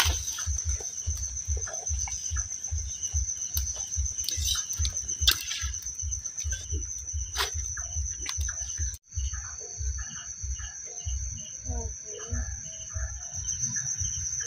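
Insects trilling at night: one steady, high-pitched, finely pulsing trill that breaks off for an instant a little past halfway and picks up again. Under it are irregular low thumps and scattered clicks.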